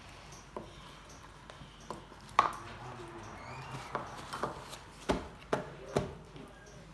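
A utensil clicking and scraping against a bowl as slime is stirred, in irregular taps, the sharpest about two and a half seconds in and a few more near the end.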